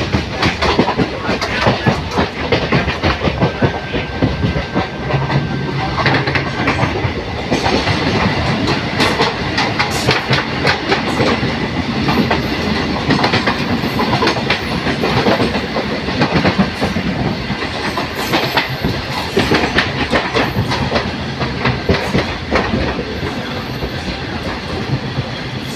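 Steady running noise of a moving MEMU electric passenger train heard through an open window, with the clickety-clack of wheels over rail joints. About halfway through, a container freight train passing close on the adjacent track adds to the din.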